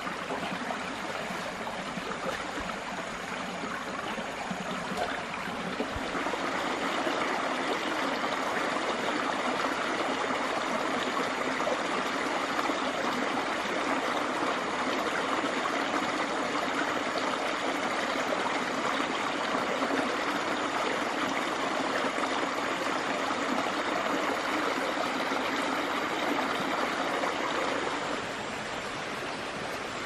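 Water flowing in a forest stream, a steady rush that gets louder a few seconds in and eases off near the end.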